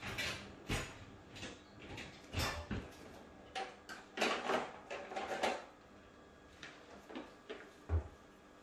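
Kitchen drawer being opened and shut with utensils rattling inside it while a spatula is sought: a run of irregular knocks and clatters, busiest around the middle, with a dull thud near the end.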